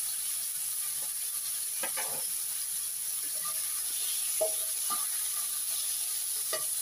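Sliced pork and garlic sizzling in a hot frying pan, with a few short clicks and scrapes of tongs turning the meat; the sharpest knock comes a little after halfway.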